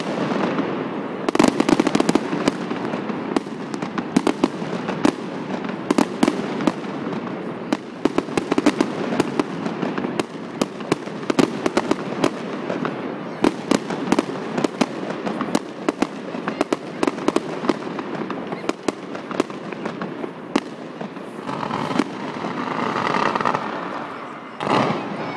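Fireworks display: rapid, irregular crackling and popping of bursting shells over a continuous rumble, swelling louder near the end and closing with one sharp bang.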